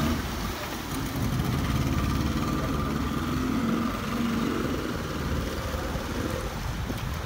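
A speedboat's twin outboard motors running as the boat pulls away at low speed, with the propeller wash churning the water. The sound eases off a little toward the end.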